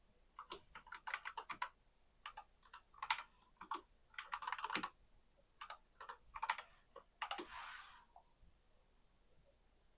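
Computer keyboard typing in quick clusters of keystrokes as login credentials are entered; the typing stops a little after seven seconds in, with a brief hiss.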